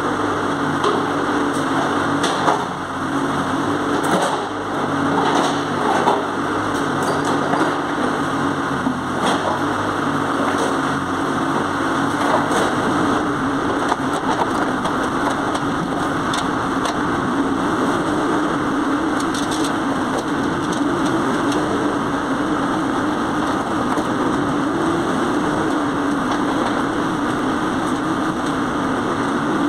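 JCB 803Plus mini excavator's diesel engine running steadily under hydraulic load as its bucket digs out the trench, with scattered knocks of the bucket against earth and rubble, most of them in the first half.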